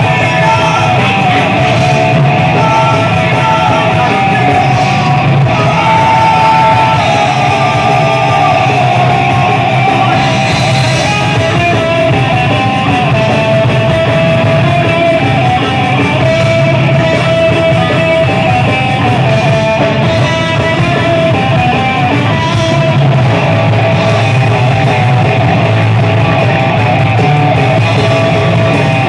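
Thrash metal band playing live: distorted electric guitar over drums, loud and unbroken.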